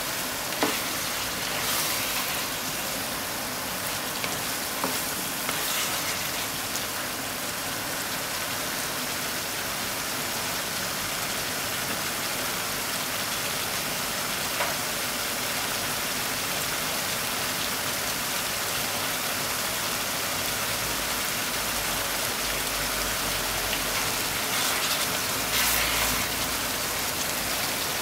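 Pork and eggplant stir-frying in a frying pan: a steady sizzle, with a few sharp taps and scrapes of the spatula as it is stirred, the loudest tap about a second in.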